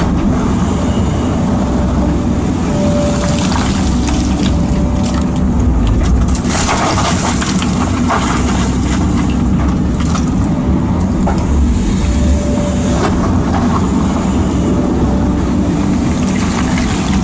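JCB JS220 tracked excavator's diesel engine running steadily under load, heard from the cab, with several short bursts of scraping and rumbling as sandstone is worked in the bucket.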